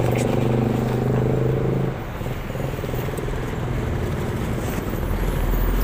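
Street traffic: a nearby vehicle engine runs with a steady hum that stops about two seconds in, leaving general road noise, with a low rumble building near the end.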